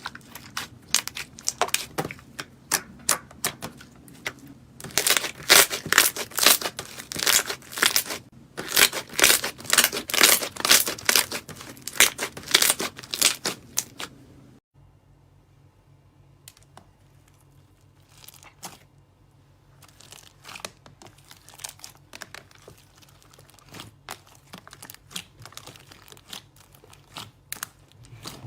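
Slime being squeezed and stretched by hand, giving dense crackling and popping. About halfway through it cuts abruptly to a quieter clip with sparser pops.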